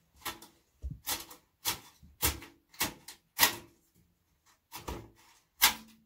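A sheet-metal computer case knocking and clattering as it is handled and its wiring pulled out: about nine sharp knocks at uneven intervals, some with a short metallic ring.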